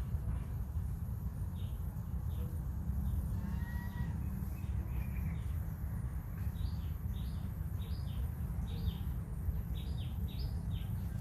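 Small birds chirping in short, high notes, clustered in twos and threes and coming more often in the second half, over a steady low rumble.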